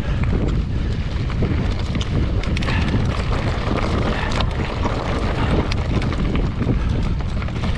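Wind buffeting the microphone during a ride over rough ground: a steady, loud low rumble with scattered sharp clicks and rattles.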